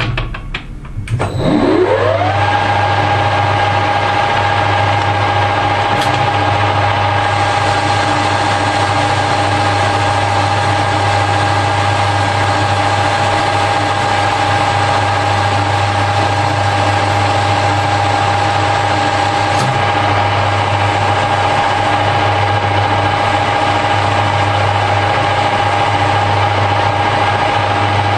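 Harrison L5 metal lathe switched on: a few clicks, then a whine rising for about a second as the spindle runs up to speed, then running steadily with a constant whine over a low hum.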